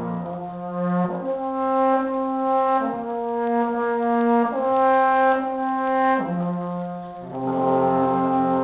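Trombone ensemble playing slow, held chords that change together every second or two.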